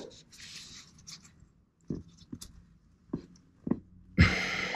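A wrench and gloved hands working a spin-on oil filter tight under a car: soft scraping, then several light metal knocks spaced about half a second to a second apart. A louder breathy rush comes in near the end.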